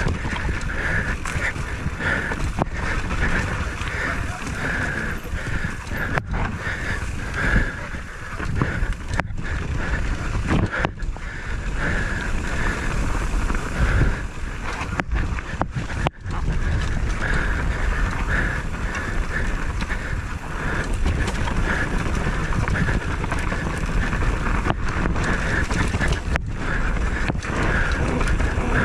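A vehicle running on the move, with wind rumbling on the microphone; the sound dips for an instant a few times.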